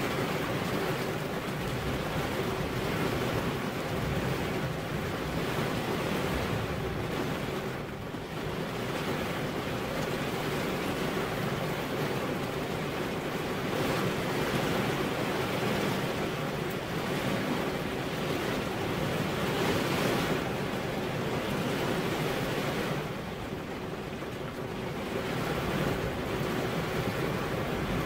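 Steady rain on a window: a continuous, even hiss that eases slightly twice, about eight seconds in and again near the end.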